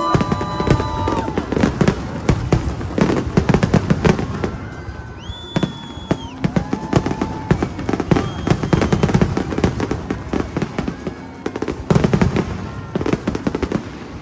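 Fireworks going off in a rapid, continuous barrage of bangs and crackles, stopping at the very end.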